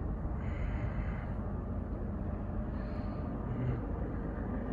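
Low, steady rumble of a CSX freight train's diesel locomotives approaching from a distance.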